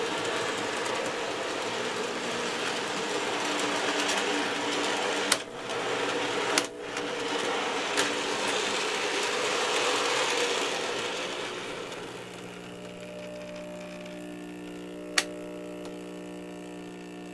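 N gauge model diesel locomotive running along the track with its cars, its small motor and gears whirring steadily, broken by a few sharp clicks. About twelve seconds in the whirring fades and a quieter steady electrical hum remains.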